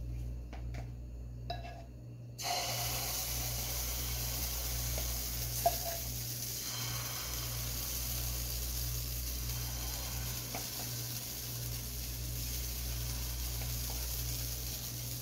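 Pancake batter frying in hot oil in a frying pan: a steady sizzle that starts suddenly about two and a half seconds in, after a few light clicks. A single sharp knock stands out near the middle.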